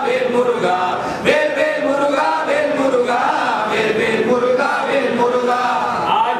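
A group of men singing a Tamil devotional song to Lord Murugan together, with long held notes that waver in pitch.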